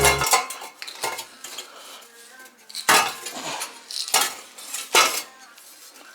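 Loose broken pieces rattling and clinking inside the removed exhaust manifold catalytic converter of an Alfa Romeo GT 2.0 JTS as it is shaken, in short bursts of metallic clatter about a second apart. Something inside the converter has come loose.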